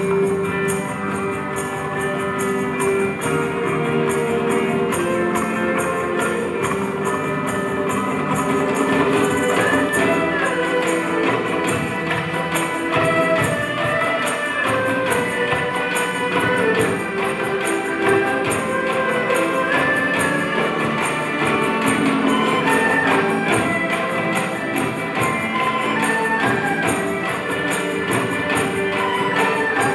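Live mixed ensemble of Chinese, Indian and Malay traditional instruments with electronic keyboards playing an instrumental piece. Melodic lines from plucked and bowed strings and bamboo flute sit over a steady percussion beat.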